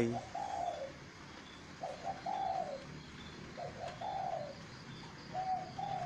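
Spotted dove cooing: four short phrases of its soft, low coo, about one every second and a half to two seconds.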